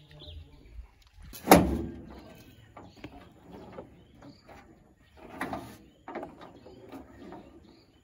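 A few knocks and clunks from handling work. The loudest is a sharp bang about one and a half seconds in that rings briefly, with another about five and a half seconds in.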